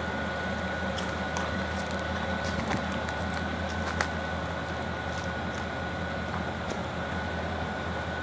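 Chevrolet S10 pickup's V6 engine idling steadily with a low rumble and a thin constant whine. A few light clicks sound over it, the sharpest about four seconds in.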